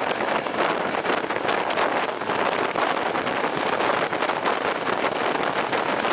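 Wind rushing over a microphone held out of a moving train's window, over the train's steady running noise on the rails. The level stays even throughout, with no horn or braking.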